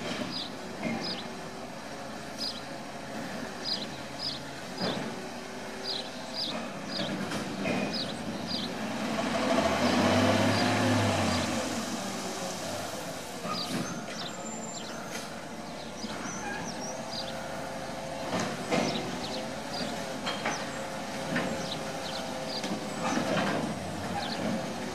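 Labrie Automizer side-loading garbage truck on a Peterbilt chassis, its engine running as it works its route and moves slowly forward. The engine and hydraulics swell louder about nine to twelve seconds in, then settle to a steady hum. Short high chirps repeat throughout.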